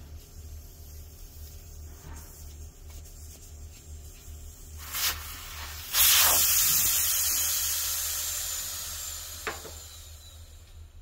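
Air escaping from a small tire's valve stem as the valve core is removed: a short puff of hiss, then a loud rush of air that starts suddenly about six seconds in and fades away over about four seconds as the tire deflates.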